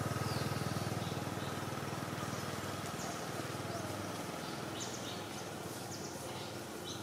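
A steady low engine hum that slowly fades, with a few short high chirps over it.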